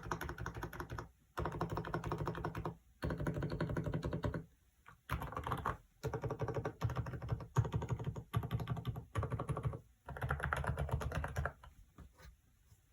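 Typing on an FL-ESPORTS CMK75 mechanical keyboard fitted with Kailh silent cream linear switches: runs of fast keystrokes about a second long with short pauses between, stopping near the end with a few last taps.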